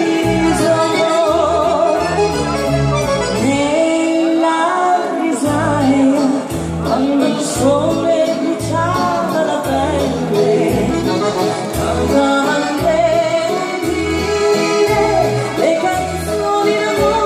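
Live dance-band music with a steady bass beat and a melody line carried over it.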